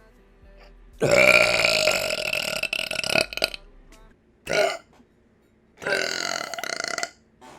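A woman burping three times: a long, loud burp of about two and a half seconds, a short one, then another of just over a second.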